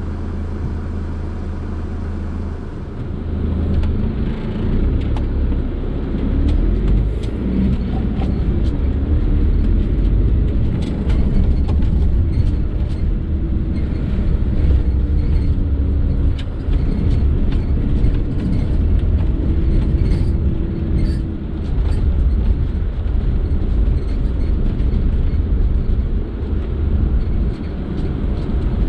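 Fiat Ducato camper van engine and road noise, heard from inside the cab. It hums steadily at first, then from about three seconds in it pulls away, the engine note rising and falling as it drives, over a low road rumble with light rattles.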